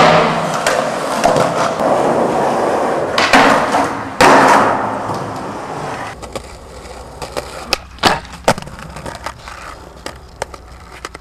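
Skateboard wheels rolling on concrete, with sharp clacks of the board hitting the ground. The rolling and impacts are loud in the first half, then quieter with a few scattered clicks.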